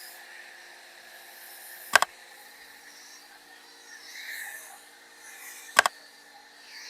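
Two sharp clicks, about four seconds apart, over a steady low hum and faint hiss.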